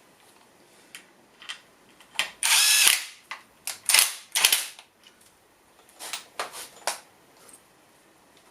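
Tools working on metal mounting hardware: a short, loud rattling burst about two seconds in, then a string of sharp metallic clicks and clanks.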